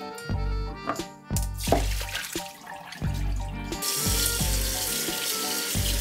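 Beef slices being rinsed in a kitchen sink: water splashing, then from about four seconds in a cold tap running steadily onto the beef in a steel mesh strainer.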